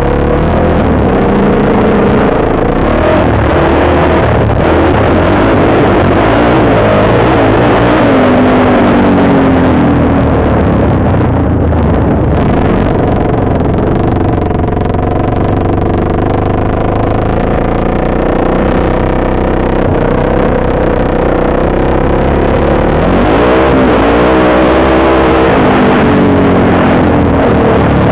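Engine of an off-road vehicle being ridden hard, its revs rising and falling over and over, with wind rushing over a helmet-mounted microphone.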